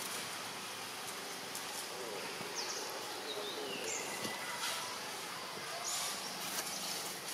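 Steady outdoor ambience hiss with a few high, thin whistled calls. The longest starts about two and a half seconds in and glides down in pitch over about a second and a half; shorter ones come around four and six seconds in.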